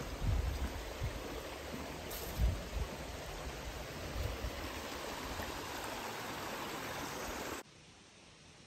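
Brown Mountain Creek's water rushing steadily, with a few low thumps in the first half. The sound cuts off suddenly near the end.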